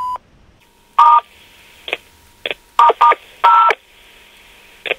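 Answering-machine beep, then a telephone line with a faint steady hum and about seven short, loud keypad tones (DTMF) pressed at irregular intervals.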